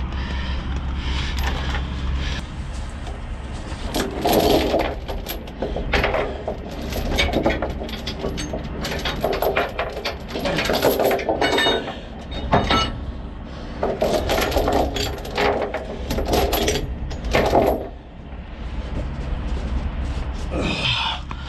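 Heavy steel tie-down chains clanking and rattling as they are pulled and dropped on a wooden trailer deck, in clusters of clinks from about four seconds in to near the end, over a steady low hum.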